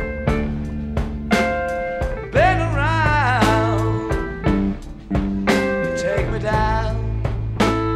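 Blues-rock band recording: lead electric guitar playing long bent notes with a wide vibrato over steady bass and a drum kit.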